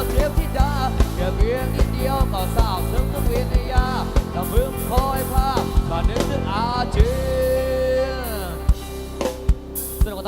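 Thai band music played loud through a parade sound truck's PA system: a bending melody over a steady low drone and a regular drum beat. A long held note comes about seven seconds in, then a few drum hits as the music winds down.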